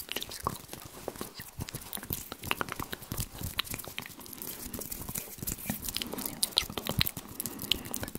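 Close-miked ASMR mouth and hand sounds: a dense, irregular run of wet mouth clicks and crackles mixed with fingers rubbing and moving right by the microphone.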